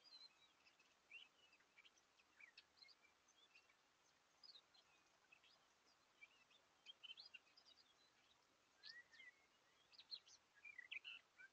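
Faint birdsong: many short chirps and quick song phrases from small birds, scattered throughout and busiest near the end, over the steady hiss of a trail camera's microphone.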